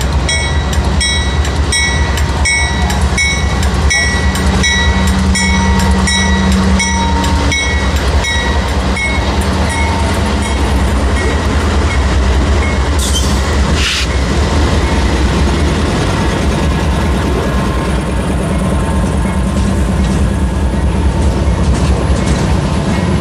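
A lash-up of Norfolk Southern GE diesel locomotives, an AC44C6M leading C44-9W units, running past close by under power, with a steady deep engine drone and wheel noise on the rails. A bell rings repeatedly through roughly the first ten seconds, and a short hiss and a sharp clank come about halfway through.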